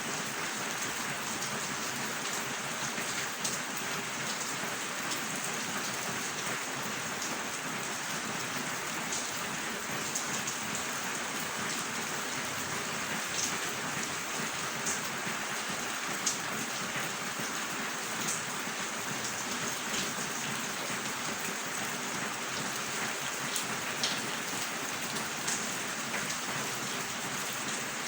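Steady rain falling, an even dense hiss with sharp individual drop hits now and then.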